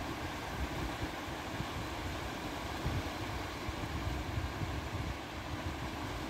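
Small Baltic Sea waves washing steadily onto a sandy beach, with a gusty low rumble of wind buffeting the microphone.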